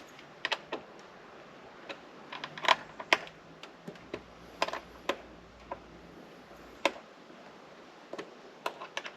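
Irregular small, sharp clicks and ticks of hand tools and screws as the windscreen's mounting screws are tightened.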